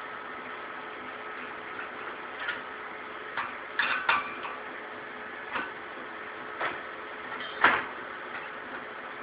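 Sharp metal clicks and knocks of brass regulator and hose fittings being handled and tightened while a shielding-gas cylinder is hooked up to a welder. The knocks come at irregular moments, the loudest about three quarters of the way in, over a steady faint hum.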